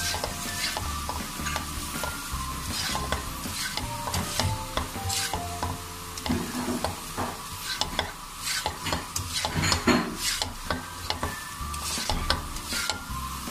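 A spatula stirs and tosses boiled macaroni with sauces in a metal karahi over the flame, scraping and clicking against the pan again and again, with a faint sizzle from the frying.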